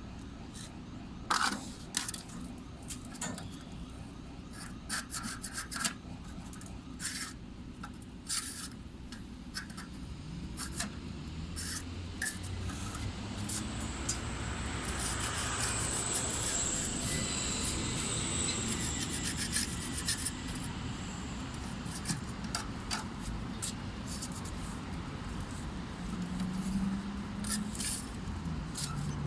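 A hand tool scraping and rubbing against a rough wall surface, a run of short sharp scrapes and taps that grows denser and louder in the middle.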